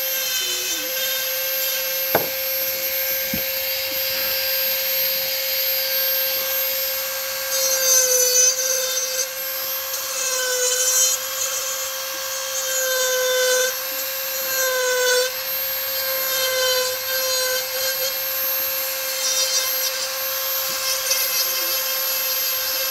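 Dremel rotary tool on a flexible shaft running at high speed with a steady whine, its carving bit grinding into soft, stringy pine in repeated passes; the pitch sags a little and a scratchy grinding rises each time the bit bites. A single sharp tick about two seconds in.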